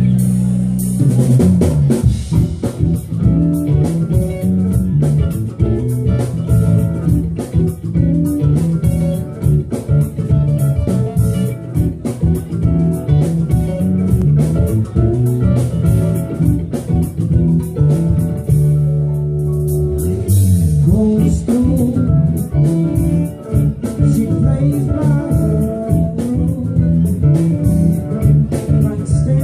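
Live band playing an instrumental passage on electric guitars, bass guitar, keyboards and drum kit. A held chord opens it, and the drums come in about a second in. The drums thin out briefly under sustained notes about two-thirds of the way through before the groove picks up again.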